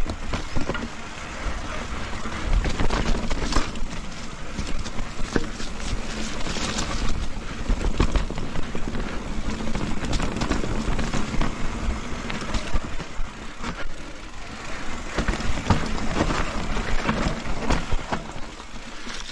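Mountain bike ridden over a muddy, rooty trail, heard through an action camera's microphone: a steady rush of wind and tyre noise with frequent knocks and rattles as the bike goes over roots.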